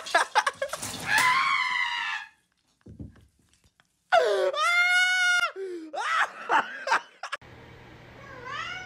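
A person screaming: one long, high, held scream of about a second and a half in the middle, amid shrieks and excited shouting. Near the end, after a cut, a short rising cry over a steady low hum.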